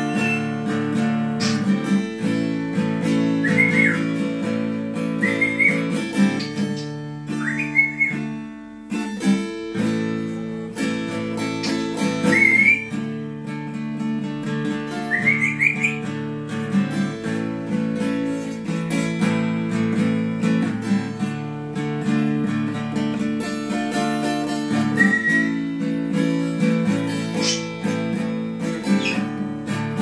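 Acoustic guitar played as an instrumental tune, with no singing. Short rising whistles, like those of an African grey parrot, sound over it about half a dozen times.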